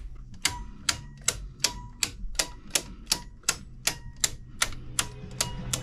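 Circuit breakers in a residential panel snapped on one after another to restore power to the house: a steady run of sharp clicks, nearly three a second, over a faint hum.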